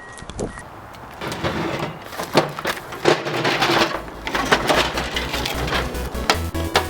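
A run of knocks and clatter, with a steady, fast electronic beat of background music coming in about four seconds in.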